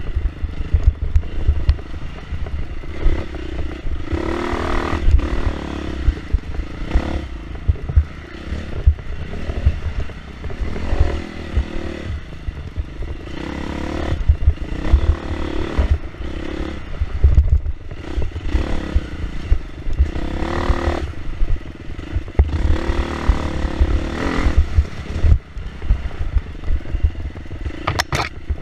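Dirt bike engine under hard riding, revving up and falling back many times as the throttle is worked. A heavy low rumble of wind and bumps hits the camera microphone throughout.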